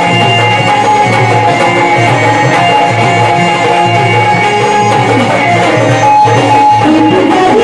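Instrumental passage of a Marathi gondhal devotional song: a steady hand-drum rhythm under a sustained melody instrument, playing continuously and loudly.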